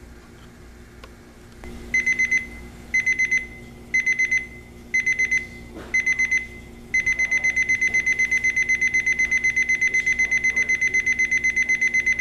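Timex T315S travel alarm clock's buzzer alarm going off about two seconds in: a high electronic beep in short bursts about once a second, then from about seven seconds in a continuous fast beeping.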